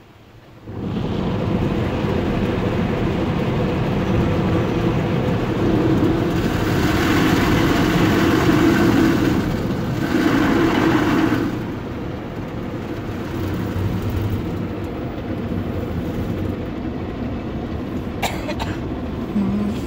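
Automatic car wash spraying water and running its machinery over the car, heard from inside the cabin. It starts suddenly about a second in, gets louder for a few seconds in the middle, then settles to a steady lower level.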